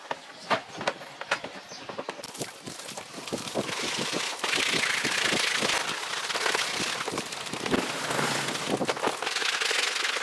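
Sharp clicks and knocks of a plastic jet ski cover being handled. From about three and a half seconds in, a steady hiss of water running from a garden hose onto the plastic cover as hands scrub it, with crackling rubs and taps.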